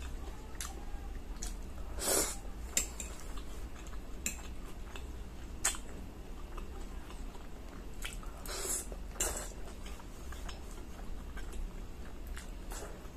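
Eating spaghetti at close range: a fork clinking and scraping on a plate, with chewing and slurping of noodles in scattered short sounds over a low steady hum.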